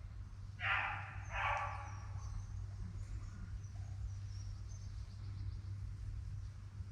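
A hunting dog gives two short bays in quick succession, about a second in, with a steady low rumble beneath.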